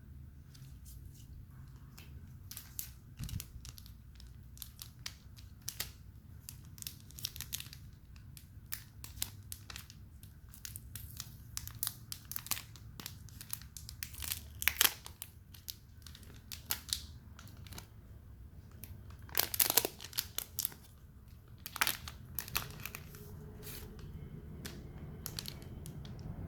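Packaging being handled and unwrapped by hand: a long run of short rustles and crackles, with a few louder bursts in the second half.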